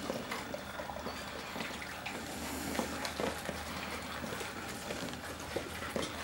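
Leonberger lapping water from a stainless steel bowl: a quick, irregular run of wet slurps and small splashes.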